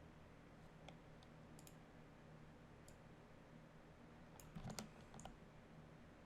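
Faint, scattered clicks of a computer mouse and keyboard over quiet room tone, with a small cluster of clicks just before five seconds in.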